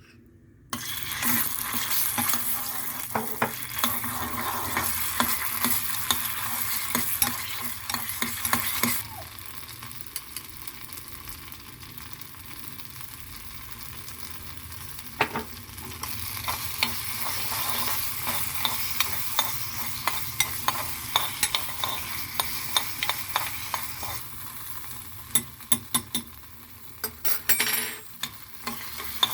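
Food frying in hot fat in a pan, a steady sizzle that starts suddenly about a second in, with a utensil stirring and clicking against the pan. The sizzle eases off partway through and rises again.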